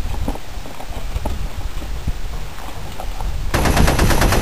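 Low wind rumble on the microphone with a few small knocks, then about three and a half seconds in a burst of rapid machine-gun fire begins, a fast even run of sharp shots.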